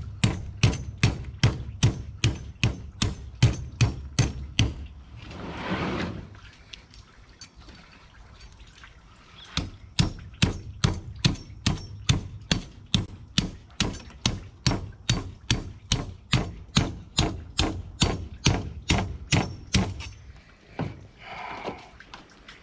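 Machete blade chopping into an alligator gar's armoured scales along its back: sharp strikes at about three a second. About five seconds in there is a short rushing noise, then a pause of about three seconds before the chopping resumes.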